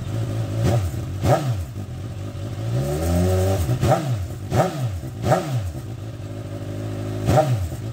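Suzuki GSX-S1000's inline-four engine running with its exhaust end can removed, open pipe. It idles between short throttle blips: the revs rise and fall quickly about six times, with one slower, longer rev about three seconds in.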